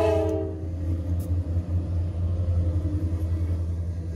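The multi-note horn of a passing diesel freight locomotive cuts off about half a second in, leaving the steady low rumble of the locomotive and loaded coal hoppers rolling past close by.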